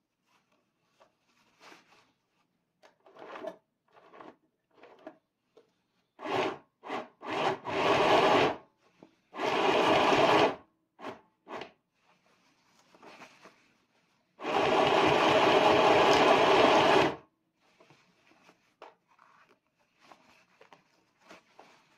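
Compact electric sewing machine (FHSM-505B) stitching through layered denim in stops and starts: a few brief bursts, runs of about a second, then one longer run of nearly three seconds past the middle. Faint fabric-handling sounds fill the gaps.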